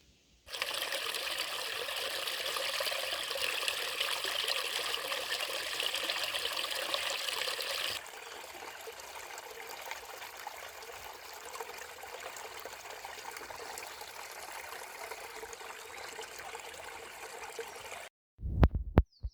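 Steady rushing of running water, a hiss with no clear rhythm. It is louder for the first several seconds, drops to a quieter stretch of the same sound about halfway through, and cuts off abruptly near the end.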